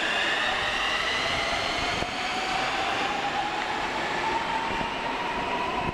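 Metro train accelerating away from the platform. Its traction motors whine in several tones that climb slowly in pitch, over a steady rush of wheels on rails.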